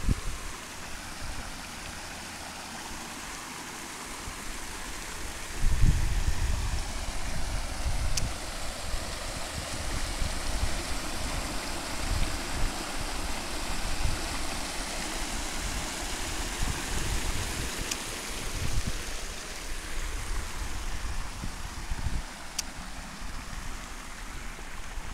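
Shallow moorland stream rushing over rocks and a small cascade, its water running across a cobbled ford. Low gusty rumbling on the microphone from about six seconds in.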